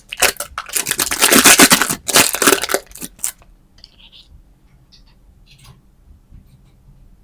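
Plastic candy packaging crinkling and tearing in loud, rapid bursts for about three seconds, then a few faint small clicks and taps.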